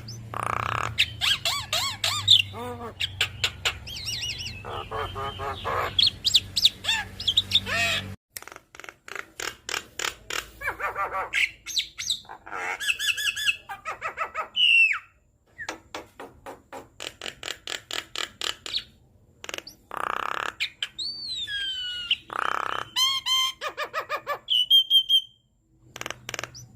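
Javan myna (jalak kebo) singing a long, varied song of rapid chattering runs of repeated notes, harsh squawks and gliding whistles, with mimicked calls of other birds mixed in. A low background hum stops abruptly about eight seconds in.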